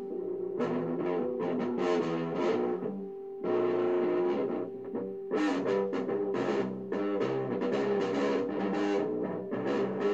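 Electric guitar with picked single notes and short runs in no set tune, with one held note about three and a half seconds in.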